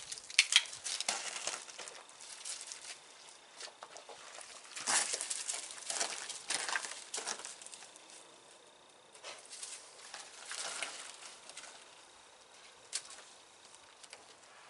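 Irregular bursts of rustling and scuffling, like something moving through dry leaves or litter, loudest near the start and again from about five to seven seconds in. A faint steady high tone sits underneath.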